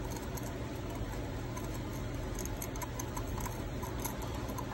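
A small pointed metal pick scratching and clicking against a freshly cast metal piece held in pliers, picking off the charred mold material, with many light irregular ticks over a steady low hum.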